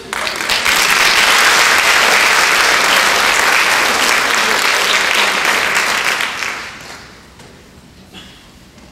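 Audience applauding, loud for about six seconds, then dying away about seven seconds in.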